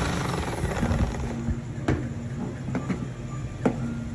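Electric hand mixer running, its wire beaters whisking thickened mayonnaise in a stainless steel bowl. Three sharp clicks about a second apart, from the beaters knocking the bowl's side.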